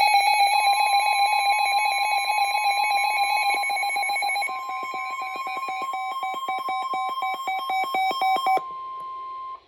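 Weather-radio tornado warning alert: a steady alarm tone, the NOAA Weather Radio warning alarm tone, with an electronic alarm beeping rapidly over it from a weather radio receiver. The beeping stops about eight and a half seconds in, and the steady tone holds on alone for about another second.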